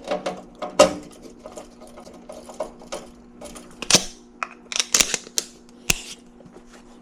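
Irregular clicks and taps of tools and wires being handled while a furnace control board is wired up, over a steady hum.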